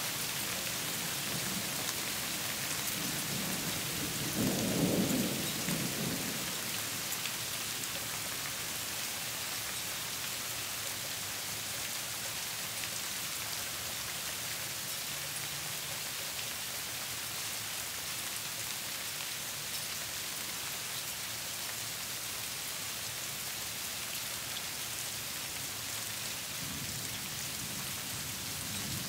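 Sleet falling in a steady hiss, with a low rumble of thunder swelling about five seconds in.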